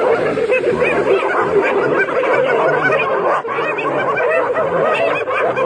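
A clan of spotted hyenas giggling, many short rising and falling calls overlapping in a dense chorus, the excited calls of hyenas mobbing a lion.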